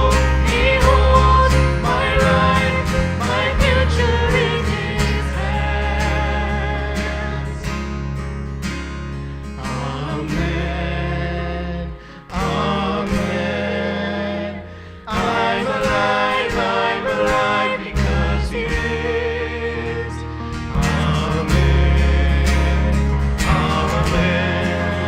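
Worship music: voices singing over a band with guitar and a steady bass, dipping briefly twice about halfway through.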